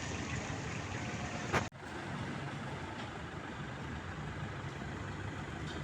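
Steady rushing noise with a vehicle engine running underneath, and a sharp click followed by a brief dropout about a second and a half in.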